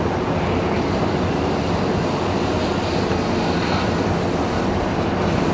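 Steady outdoor harbour ambience: an even hiss and low rumble, with wind on the camcorder microphone.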